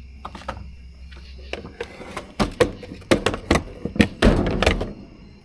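A run of sharp knocks and clunks, louder and closer together from about two seconds in, ending in a louder rumbling thud about four seconds in.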